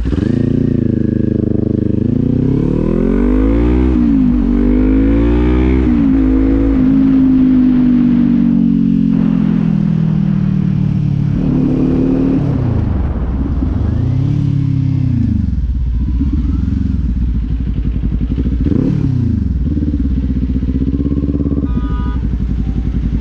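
Kawasaki Z400's parallel-twin engine pulling through the gears, its pitch climbing and dropping at each of three upshifts in the first six seconds. It then runs steadily, eases off and picks up again a few times.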